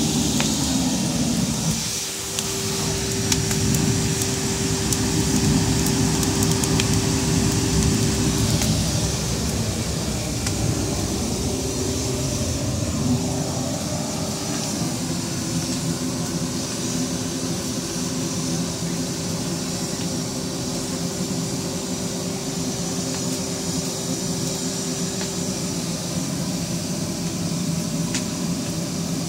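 Wet-and-dry vacuum cleaner motor running steadily with a constant whine, its hose blowing air into the base of a wood fire in a chiminea. A low rushing roar of the air-fed flames runs under it, with faint crackles.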